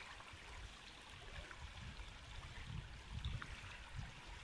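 Faint steady rush of the Wda river flowing over ripples, with uneven low rumbles coming and going.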